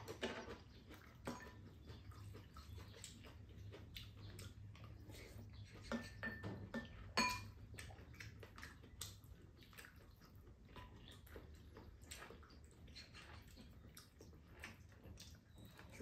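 Faint table-eating sounds: chopsticks and metal spoons tapping and scraping ceramic bowls and a pan, with chewing and slurping. The loudest is a sharp, ringing clink of a utensil on a bowl about seven seconds in.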